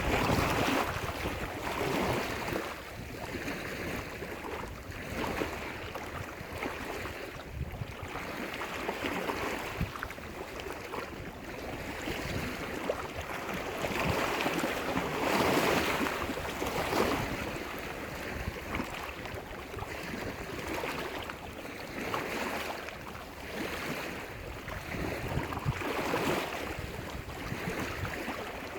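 Lake waves breaking and washing up on a shore, a steady rushing that swells and fades every few seconds, loudest around the middle.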